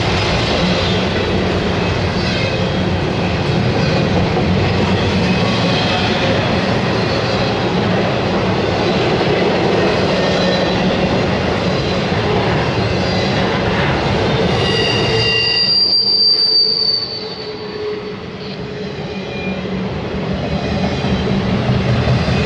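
Intermodal freight train's loaded well cars rolling past at trackside: a steady rumble and clatter of steel wheels on the rail. About fifteen seconds in, a high wheel squeal sounds for a couple of seconds, then the noise briefly drops and builds again.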